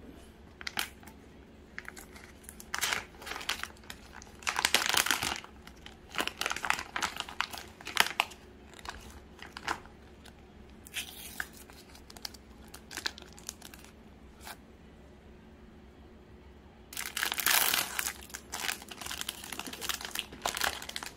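Plastic bread wrappers and a small sticker pouch crinkling and tearing as they are pulled open by hand, in irregular bursts, loudest about five seconds in and again from about seventeen seconds on.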